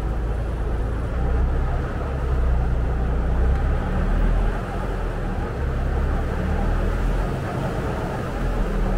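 Saen Saep canal express boat's diesel engine running under way, a steady low drone with a wash of noise above it; the engine note drops a little about halfway through.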